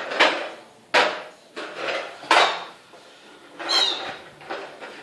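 Squeaky toy dog squeezed over and over: about six short squeaks in a row, one of them with a clear high whistle shortly before the end.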